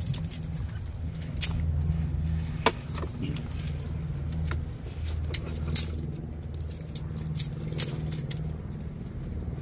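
A steady low motor hum runs throughout, with a handful of sharp clicks and knocks scattered through it.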